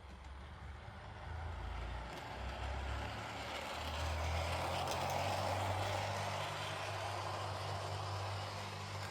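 Cavalex Class 60 model locomotive running with its sound off on cork-laid, ballasted track, its motor and gears making a steady mechanical running noise that grows louder about four seconds in as it picks up speed. This is the gear noise that comes in with speed, caused by the noisy gears that the remedial parts replace.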